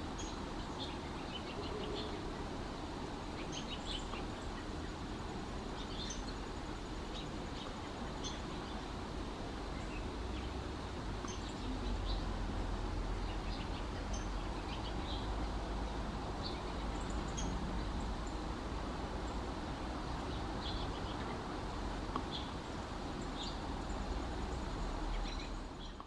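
Wild songbirds calling in a forest canopy: scattered short, high chirps and chip notes, several a few seconds apart, over a steady low outdoor rumble. The sound fades out at the very end.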